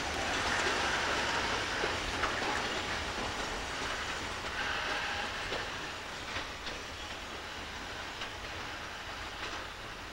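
Freight train hauled by an electric locomotive rolling slowly through the yard during shunting: a steady rumble with wheels clicking over rail joints, slowly fading as it moves away.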